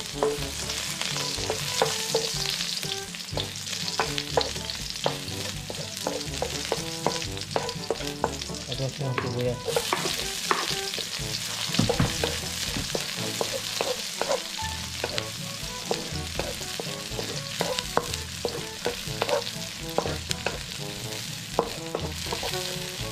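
Chopped garlic and onion frying in oil in a stone-coated wok, with a steady sizzle. A wooden spatula stirs them, knocking and scraping against the pan over and over.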